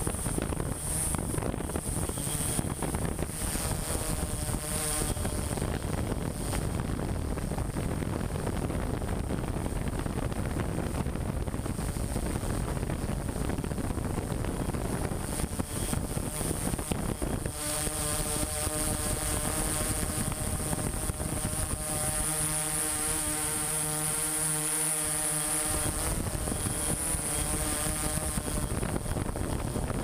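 Small multirotor drone's motors and propellers running in flight: a steady buzz with a high whine, and a stronger pitched hum between about 18 and 27 seconds in.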